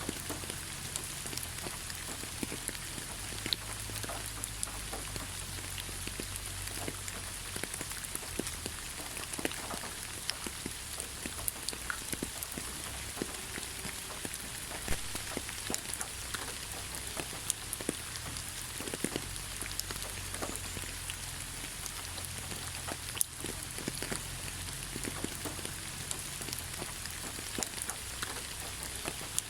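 Steady rain falling on leaves: a continuous hiss with scattered individual drops tapping.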